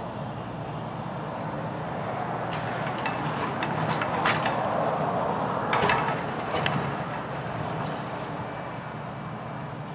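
Grapple truck engine running steadily and rising in the middle as the hydraulic grapple works, with a series of sharp clanks and knocks between about two and a half and seven seconds in: the steel grapple closing on concrete crossties inside a steel gondola.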